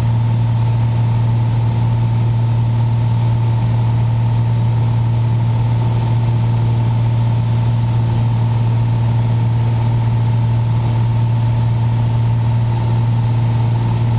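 Piper Saratoga's six-cylinder Lycoming piston engine and propeller running steadily in flight, a constant low hum heard from inside the cabin.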